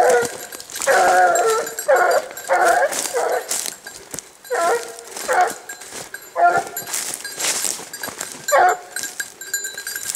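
Hunting dogs baying on a wild boar hunt: a run of short, pitched bays, close together for the first three seconds or so, then spaced out and thinning toward the end.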